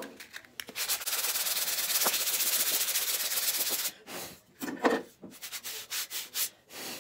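Sandpaper on a hand-held wood block rubbed against the edge of a wooden table saw zero-clearance insert: a steady fast rasp of quick back-and-forth strokes for about three seconds, then a few shorter separate strokes. The edge is being sanded down so the insert sits fully down in the saw's throat opening.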